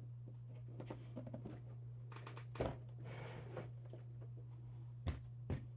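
Small clicks and knocks of rotary tool bits and accessories being handled and set into a toolbox, over a steady low hum. The sharpest clicks come about two and a half seconds in and twice near the end.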